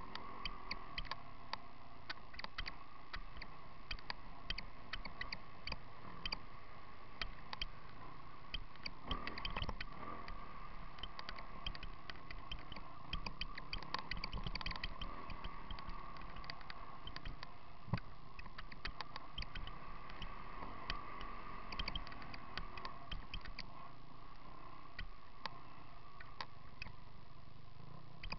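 Enduro motorcycle riding over rough, rocky ground. The engine runs steadily under dense, irregular clicking and rattling from the jolts.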